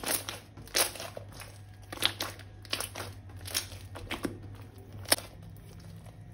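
Crinkling and crackling as slime-making materials are handled: a string of sharp crackles at uneven intervals, the loudest about a second, two seconds and five seconds in.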